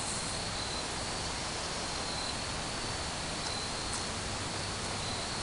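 Steady outdoor hiss with a faint, high, continuous chirring of insects such as crickets.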